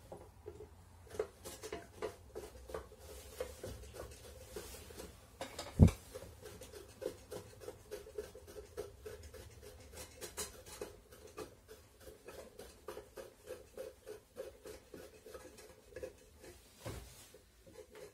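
A bolt being screwed by hand into a threaded tube inside an emptied steel fire-extinguisher body, making a quick run of light metallic clicks and scrapes as it turns. One louder knock comes about six seconds in.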